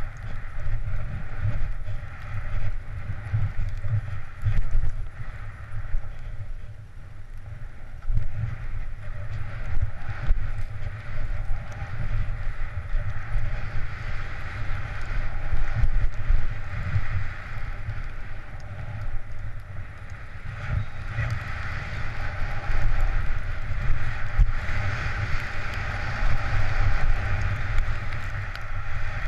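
Wind rushing over a helmet-mounted camera's microphone while skiing downhill, with skis running over snow: a rough, fluttering low rumble under a steady hiss that grows louder in the last third.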